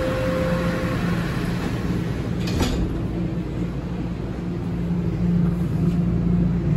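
TTC Toronto Rocket subway car: the last, lowest note of the descending door-closing chime, the doors shutting with a single knock about two and a half seconds in, then the train pulling away with a steady motor hum that grows louder near the end.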